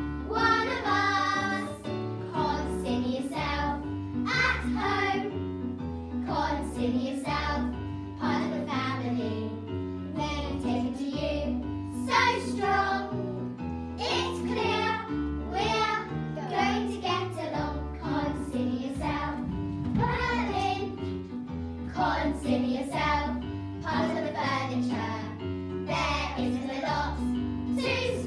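A group of young girls singing together over an instrumental backing with a steady bass line.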